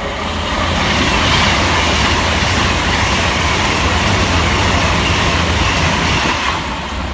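Two coupled Class 221 Super Voyager diesel-electric multiple units passing fast through a station: a loud rush of wheels on rail and diesel engines under a deep steady rumble. It builds over the first second, holds, and dies away near the end.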